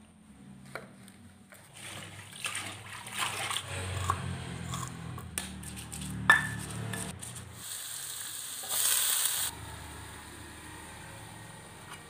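Home cooking sounds in quick succession: knocking and scraping of a stone pestle in a stone mortar, with one sharp knock a little past halfway. Then a loud burst of sizzling from a hot wok about eight seconds in, settling to a quieter hiss.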